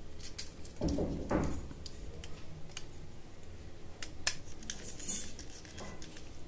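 Small sharp clicks and scrapes of a screwdriver working the terminal screw of a plastic miniature circuit breaker while a wire is fitted into its bottom terminal, with a couple of louder dull knocks about a second in.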